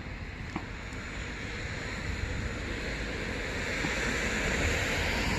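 A vehicle approaching on a wet road, its tyre hiss growing steadily louder, over a low wind rumble.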